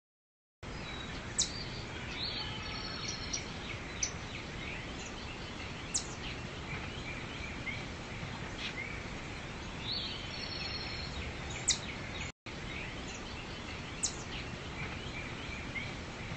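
Outdoor nature ambience: a steady hiss with small birds chirping throughout and a few sharp, high chip notes. The sound cuts out for an instant about twelve seconds in.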